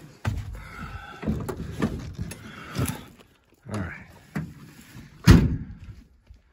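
Knocks and rustling of someone climbing out of an old van, then the van's door slammed shut about five seconds in, the loudest sound.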